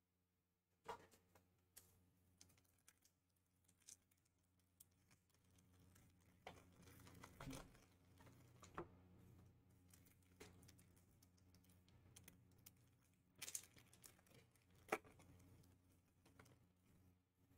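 Faint, scattered clicks and taps with some light crinkling: trading cards and foil pack wrappers being handled on a table, with a few sharper clicks near the end.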